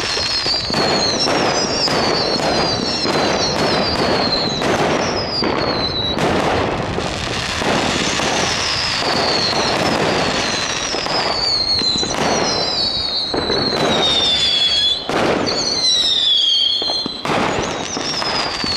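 Many fireworks going off at once: a dense run of bangs and crackles, over which one whistling firework after another sounds, each whistle falling in pitch.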